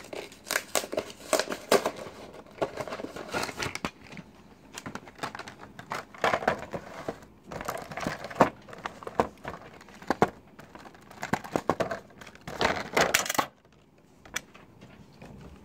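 Clear plastic packaging of a Pokémon Mythical Collection box being handled and pried open: irregular crinkling and crackling with sharp clicks, stopping about two seconds before the end.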